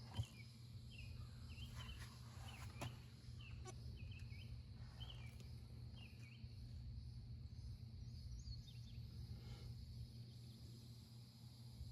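Small birds chirping in short repeated calls for the first several seconds, over a faint, steady low hum.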